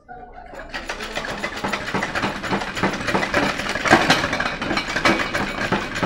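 Automatic transmission reverse drum being shaken and turned with pliers inside the case, its clutch steels and frictions rattling and clinking against the output drum as they are worked into line. A fast, continuous metal clatter that starts about a second in.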